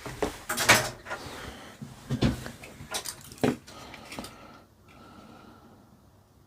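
Handling clatter as a small plastic remote-control helicopter is taken apart: a handful of sharp knocks and scrapes of plastic and small tools in the first few seconds, then quieter fiddling.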